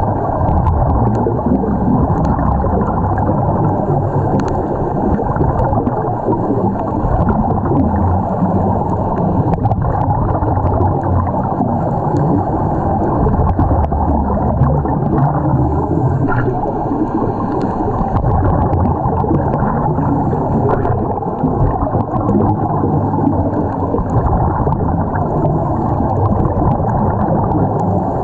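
Underwater sound picked up through a camera's waterproof housing: a steady, muffled rush and rumble of water with the bubbling of scuba divers' exhaled air.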